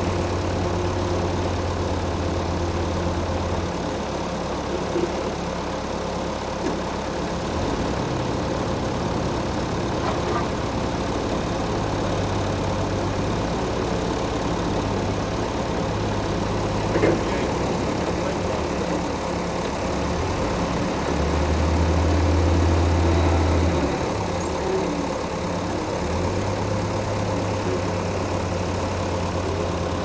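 Engine of a large bandsaw sawmill running steadily, its deep note shifting up and down several times, with one sharp knock about seventeen seconds in.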